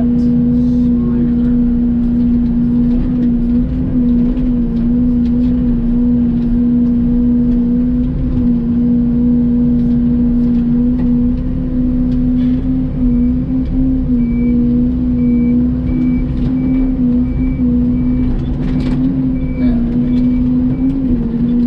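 Mini excavator's diesel engine running steadily as it works, with a constant hum that wavers a little under hydraulic load, and a few scattered knocks as brush is handled. A faint repeating high beep sounds through the second half.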